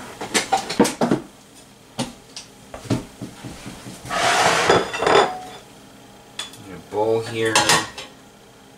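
Kitchen dishes and utensils clattering: a bowl set down and a serving spoon knocking and scraping against a stainless steel pot as cooked pasta is scooped into the bowl. A run of clinks and knocks, with a longer scrape about four seconds in.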